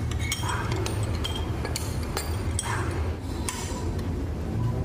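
Several light metallic clinks and taps as a metal ring is handled on a steel rod and set down on a steel bench vise, over a steady low hum.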